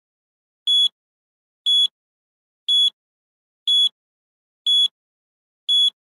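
Countdown timer beeping once a second: six short, high, identical beeps with silence between them, ticking off the seconds.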